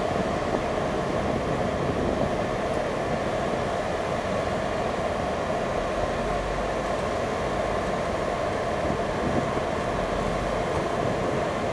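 Steady mechanical drone of the ferry's engines, with a rough low rumble underneath.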